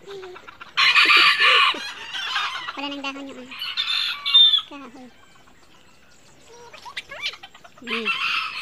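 Roosters crowing: three loud crows, about a second in, mid-way and near the end, with quieter gaps between.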